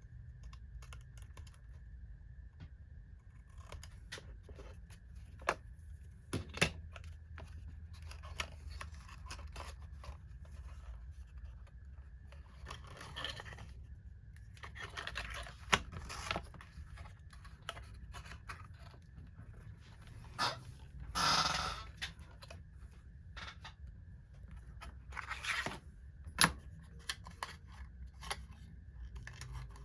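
Small parts being handled and fitted by hand at a workbench: scattered sharp clicks and taps with short scrapes and rustles, the longest and loudest rasp about 21 seconds in, over a steady low hum.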